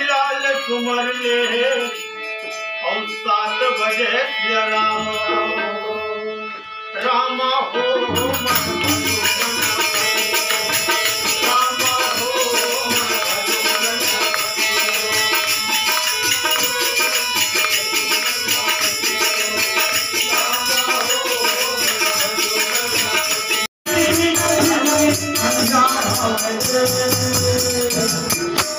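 Hindu devotional bhajan music with a harmonium melody; about 8 seconds in, the full ensemble enters with a hand drum and jingling hand percussion, playing continuously apart from a momentary break near the end.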